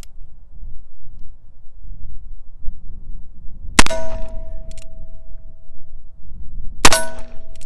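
Two shots from a Taurus Deputy single-action revolver in .45 Colt, about three seconds apart. Each shot is followed at once by a hanging steel target ringing with one steady tone that slowly fades.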